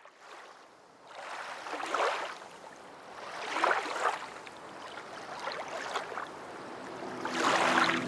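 Rushing noise, like water or surf, swelling and fading in repeated surges about every two seconds, with music starting near the end.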